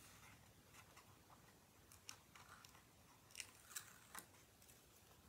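Faint handling of a cardstock shadow-box frame over near silence: a few soft clicks and rustles, about four, in the second half, as the paper sides are pressed down.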